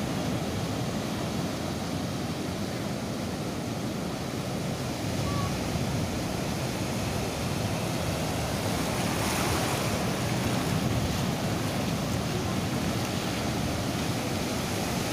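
Ocean surf breaking and washing up the shore in a continuous rush, swelling louder about nine to eleven seconds in as a bigger wave comes through.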